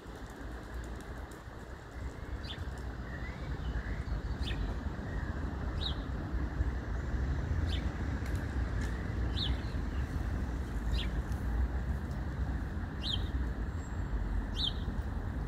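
A small bird giving short, high chirps about every one to two seconds, some seven in all, over a steady low rumble.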